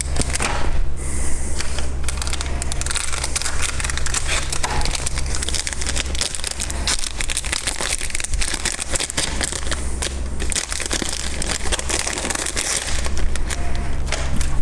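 Packaging crinkling and crackling steadily as it is handled and opened, over a steady low electrical hum.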